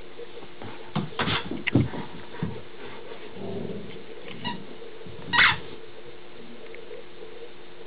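A large dog nosing and mouthing a plush toy on a rug: a cluster of short scuffling sounds about a second in and one louder, short noisy burst about five and a half seconds in.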